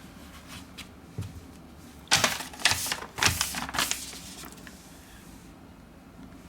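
A quick, irregular run of sharp clicks and knocks about two seconds in, lasting roughly two seconds.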